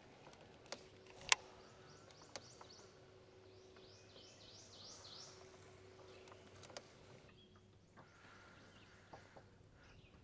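Birds calling over a quiet river: a quick run of short, downward-sliding chirps a few seconds in, over a faint steady hum. A few sharp clicks stand out, the loudest about a second in.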